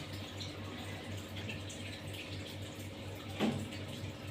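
A person breathing deeply on instruction, with one short breath out about three and a half seconds in, over a steady low hum and faint hiss.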